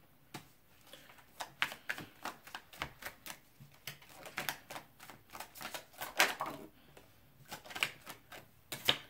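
Tarot deck being shuffled by hand: an irregular run of quick card snaps and clicks.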